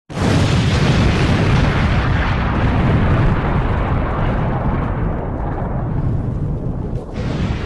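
Explosion sound effect for an animated subscribe intro: a sudden loud blast with a long low tail whose hiss slowly fades, and a second rush of hiss about seven seconds in.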